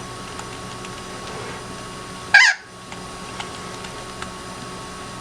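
Faint key clicks from the Sol-20 keyboard over a steady electrical hum, broken about two and a half seconds in by a single short, loud bird squawk.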